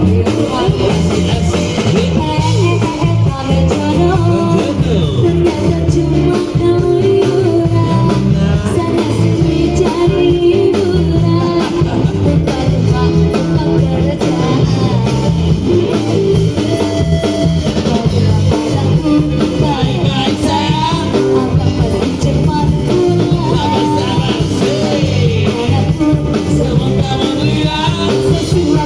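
A song with a singing voice over guitar and drum kit, a steady rock beat.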